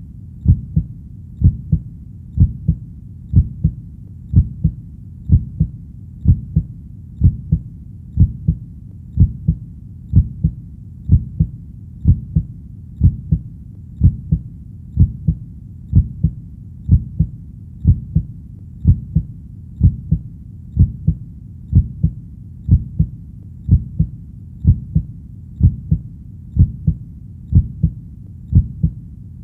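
Heartbeat sound: a steady lub-dub of paired low thumps, about one beat a second.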